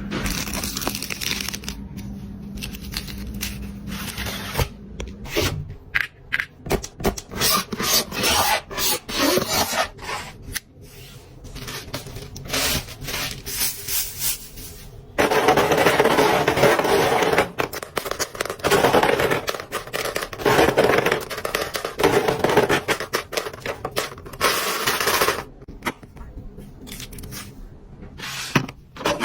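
Hands handling a gift box and its packaging at close range: rubbing, scraping and many small clicks and crackles, with louder stretches of continuous rustling from about halfway through until near the end.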